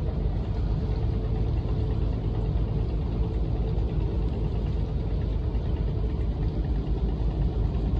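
A boat's engine running with a steady low drone.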